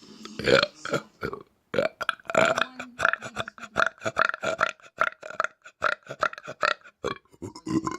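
A man burping on purpose: one loud burp near the start, then a long string of short burps in quick succession, about two to three a second.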